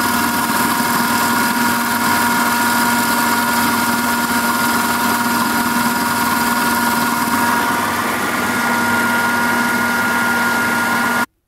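Food processor motor running at full speed, its blade grinding roasted peanuts, salt and melted coconut oil into peanut butter: a loud, steady whir with constant whining tones. It cuts off suddenly near the end.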